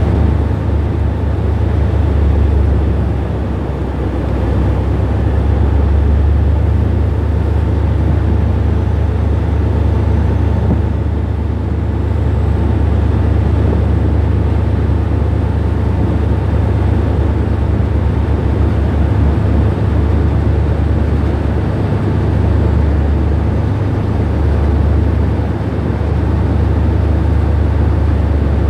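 Anchor handling tug supply vessel's engines running steadily: a loud, low rumble with a constant wash of noise over it.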